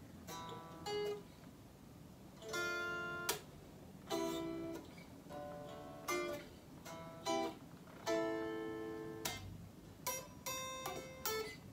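Solid-body electric guitar played slowly and quietly: about ten picked chords and single notes, each left to ring briefly with short pauses between.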